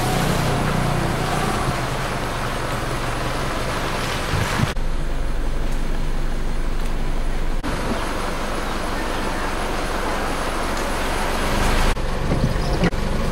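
Car engine and road noise heard from inside a vehicle, a steady low hum with a constant rushing hiss. The sound changes abruptly a few times.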